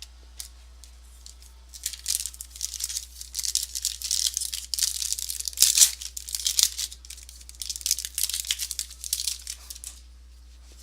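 Trading-card pack wrapper being torn open and crinkled: a run of quick, crackling rustles starting about two seconds in and lasting about eight seconds, loudest near the middle.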